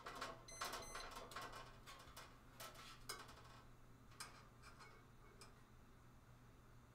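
Utensil clinking and scraping against a pan on the stove: a quick run of light clicks and taps, one of them ringing briefly near the start, thinning out and stopping about two-thirds of the way through.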